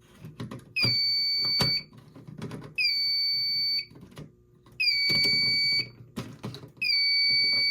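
Fire alarm demo system sounding its alarm tone: a steady high electronic tone in blasts of about one second with one-second gaps, four times, each blast opening with a slight dip in pitch. Clicks and knocks are heard between the blasts.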